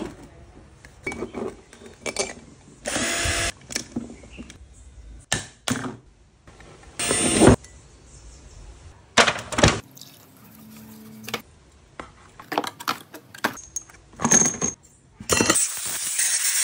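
Metal clinks, taps and scrapes from handling and picking at Nissan brake caliper parts, with a few short hissing bursts. Near the end, a compressed-air blow gun hisses steadily as it blows out a caliper body.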